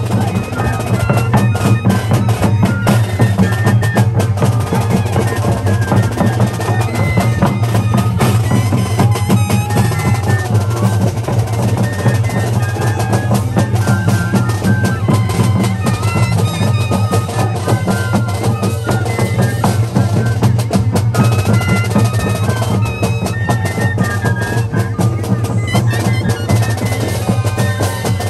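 Moseñada band music: a consort of mohoceño flutes playing a melody together over a steady low sound, with a bass drum and snare drum beating along.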